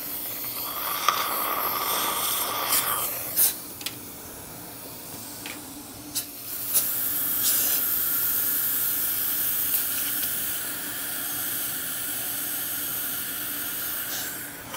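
Dental saliva ejector suction hissing steadily as it draws air and fluid from the mouth, in two long stretches with a quieter gap between and a few light instrument clicks.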